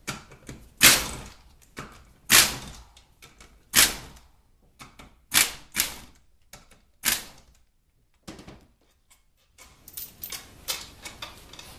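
Pneumatic air ratchet with a Torx T40 socket spinning out the bolts that hold the transmission pump to the bell housing, in a series of short bursts about every second and a half. Near the end there is lighter clatter.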